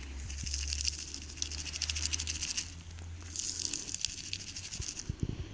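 Dry sand and grit pattering as it is poured and sifted through a plastic colander: a dense, continuous crackle of fine grains. A low steady hum lies under it for the first few seconds.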